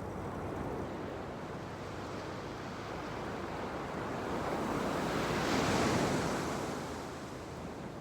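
Ocean surf on a sandy beach: a steady wash of waves, with one wave swelling up and breaking about five to six seconds in, then fading back.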